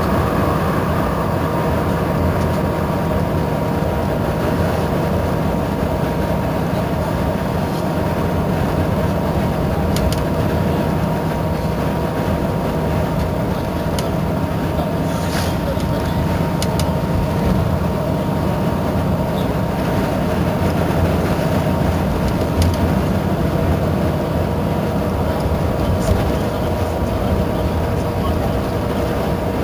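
Iveco Crossway bus's diesel engine idling steadily while standing at a stop, a low rumble with a steady whine over it, and a few short clicks.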